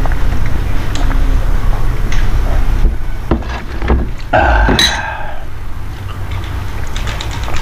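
Close-miked eating sounds: chewing and mouth noises with scattered small clicks, over a steady low hum. About four and a half seconds in comes a louder, drawn-out mouth sound.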